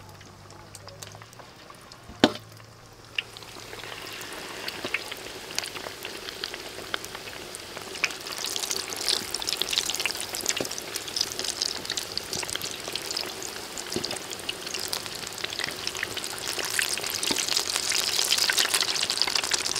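Flour-battered chicken legs deep-frying in hot oil in a wok: a crackling sizzle that starts a few seconds in and builds, loudest near the end. One sharp knock about two seconds in.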